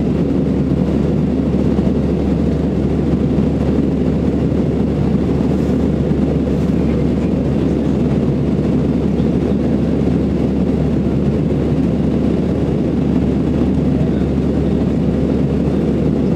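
Steady cabin noise of an Airbus A319 in flight, heard inside the cabin by the wing: an even, unchanging low drone of the jet engines and airflow.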